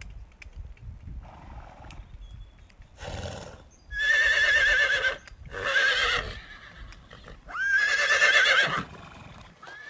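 Horse neighing: three loud, quavering whinnies, the first about four seconds in, the last ending near nine seconds, after a quieter stretch of low sounds.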